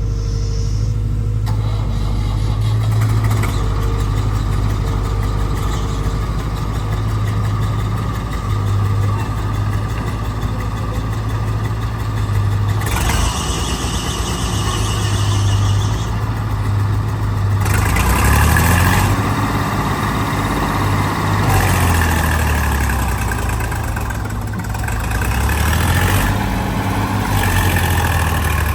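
Heavy diesel engines of a backhoe loader and tractors running at a work site. The engine note rises and falls several times in the second half as the engine revs under load, with a few spells of louder rushing noise.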